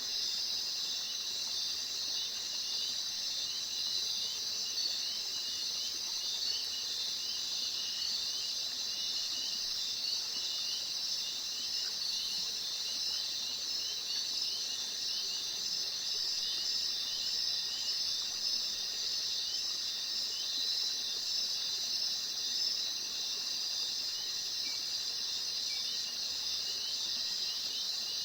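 Insect chorus, a recorded sound effect: a dense, steady high-pitched trill with a regular series of short chirps over it.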